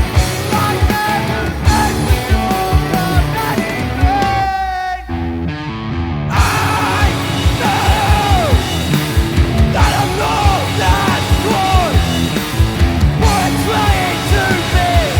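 Punk rock band playing a song, with drums, distorted electric guitars and sung and yelled vocals. About five seconds in the drums drop out for a short break, and the full band comes back in a second or so later.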